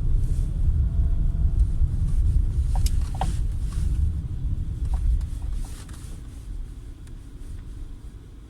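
2012 Peugeot 408 on the move: a heavy low rumble that fades over the last few seconds. A few short knocks come through around three seconds in and once near five seconds. They are the knock from the car's front end.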